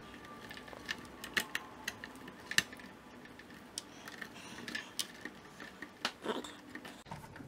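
Light, scattered clicks and rustling of plastic connectors and cable bundles being handled as the front-panel USB 3.0 cable is pushed into its motherboard header, the sharpest click about two and a half seconds in.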